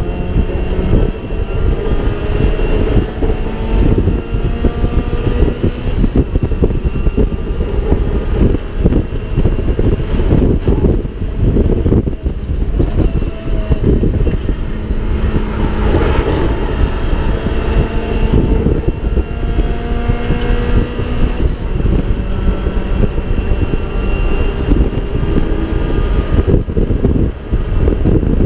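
In-car sound of a Mazda MX-5 race car at full racing pace. The four-cylinder engine note climbs in pitch again and again through the gears, over heavy wind and road buffeting.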